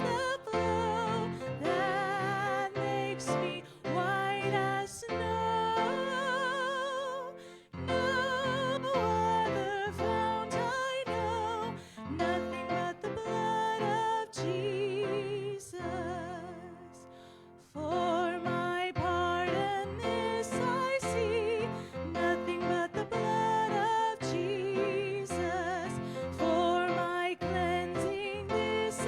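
Worship song: singing with vibrato over instrumental accompaniment, with long held notes and a short break in the music a little past the middle.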